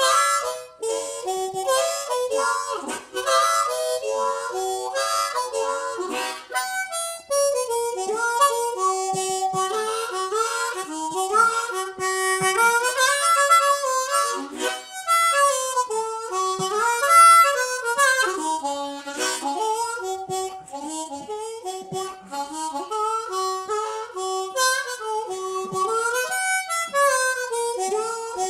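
Harmonica played solo with cupped hands: a continuous melody of short and held notes stepping up and down in pitch.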